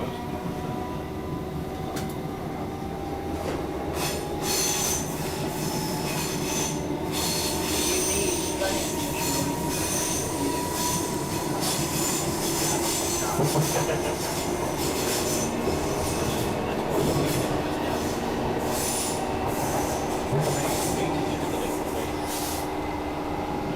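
A Class 319 electric multiple unit under way, heard from inside the carriage. A steady motor whine rises slightly in pitch over the first ten seconds or so. From about four seconds in there is repeated clatter and high-pitched squealing from the wheels on the track.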